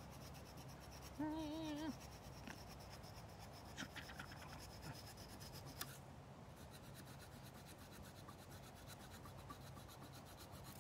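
A knife carving through a forked chokecherry stick to cut off its excess, faint scraping strokes with a few sharp clicks about four and six seconds in. A brief wavering tone sounds about a second in.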